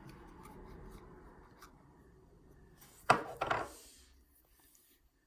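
Faint handling noise, then about three seconds in a brief, loud rubbing clatter of about half a second, in two quick hits.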